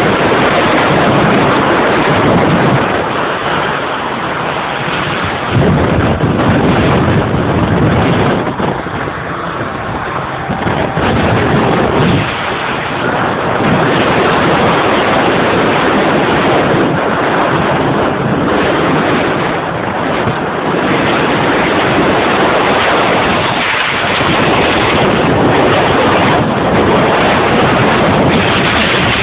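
Loud wind buffeting the microphone on an inflatable boat out on choppy open water, rising and falling in gusts, mixed with the rush and splash of waves.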